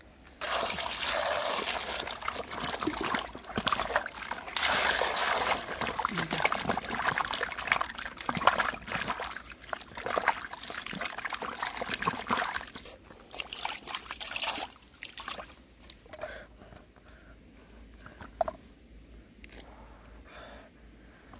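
Water splashing and sloshing in a metal pan as green bell pepper halves are rubbed and rinsed by hand. The splashing stops about two-thirds of the way through, leaving only a few light knocks.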